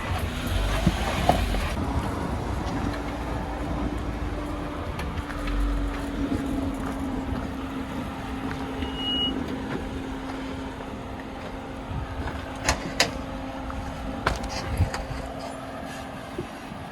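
Off-road Jeep crawling slowly over rock, its engine a steady low drone, with a few sharp knocks near the end.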